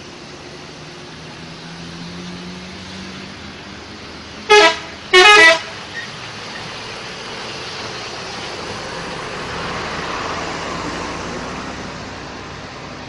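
A bus horn sounds two short, loud blasts in quick succession, over steady road-traffic noise. Later a vehicle passes with a rise and fall of engine and tyre noise.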